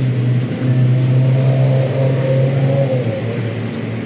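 A motor running with a steady low hum that eases off about three seconds in.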